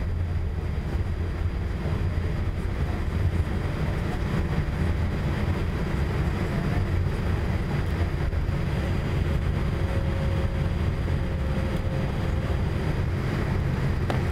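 Steady cabin noise of a Boeing 787 taxiing, heard from a window seat: a constant low rumble from the engines at taxi power and the airframe rolling along the taxiway.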